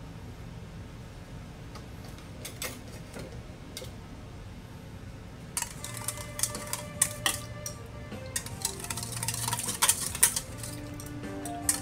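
Wire whisk beating sauce in a stainless steel bowl, rattling and scraping against the metal in quick strokes that start about halfway through and grow faster. Background music plays throughout.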